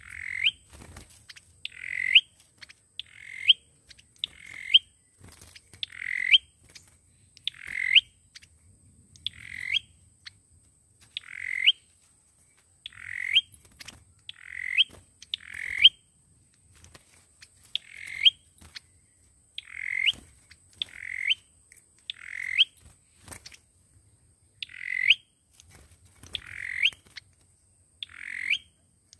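Call of the small songbird known in Vietnam as sâu dừa, the lure call used to trap it: a short note that sweeps upward, repeated about every one and a half seconds.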